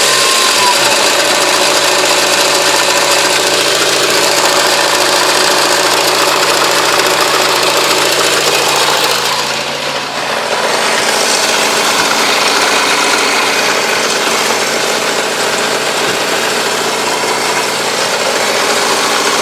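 Honda CR-V N22A2 2.2-litre diesel engine running, with the tinny, saucepan-like knock of a failed crankshaft damper pulley. The engine's note changes about halfway through.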